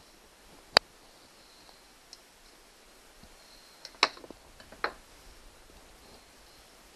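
Sharp clicks of small hand tools being handled and set down: one loud click about a second in, then two more a little under a second apart around four seconds in.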